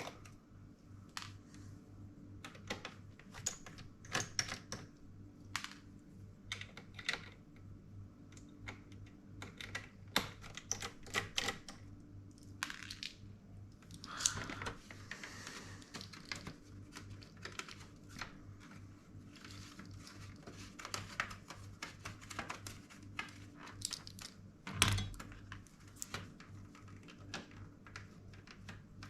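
Scattered small clicks and taps of plastic and small metal parts being handled while a laptop is taken apart, over a low steady hum, with one louder knock near the end.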